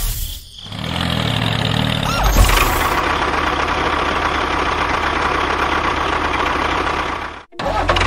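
Tractor engine running steadily with a low throb, with a thump about two and a half seconds in. The sound cuts out abruptly near the end, then starts again.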